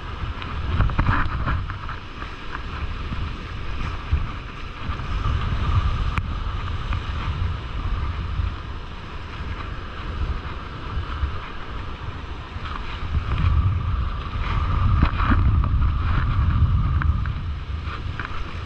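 Wind buffeting the microphone over surf washing in around the feet, the rumble rising and falling in gusts.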